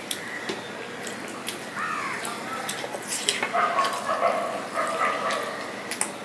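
Small clicks and smacks of fingers picking at a curry chicken leg on a steel plate. An animal calls in the background: a short rising-and-falling cry about two seconds in, then longer, louder cries through the middle.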